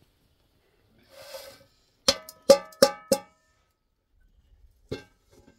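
Metal pot lid covered in hot ash and embers being lifted off a pot on a wood fire: a short rustle of ash sliding off, then four ringing metallic clanks about a third of a second apart as the lid is knocked to shake off the ash, and one lighter knock near the end.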